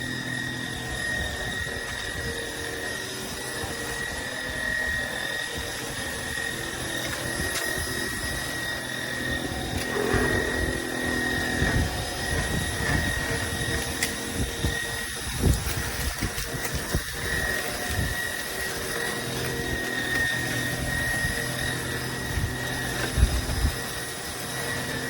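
Trucozie cordless stick vacuum cleaner running steadily with a high motor whine, with a few short knocks partway through.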